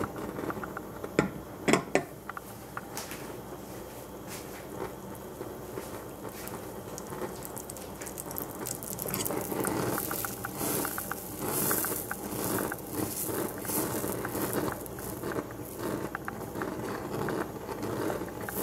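Butter melting and sizzling in a stainless steel saucepan over a gas flame: a rapid crackle of tiny spatters that grows louder and busier about halfway through. A couple of sharp knocks near the start.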